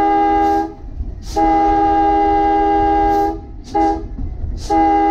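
Horn of Key System car 187 sounding the grade-crossing signal: long, long, short, long, with the last long blast starting near the end. Each blast is a steady chord of several tones.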